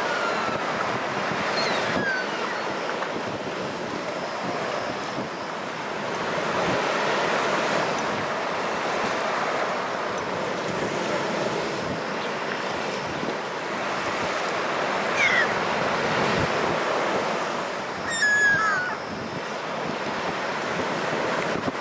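Rough storm surf breaking and washing steadily on the shore, with wind buffeting the microphone. A few short high bird calls cut through, the loudest a pair near the end.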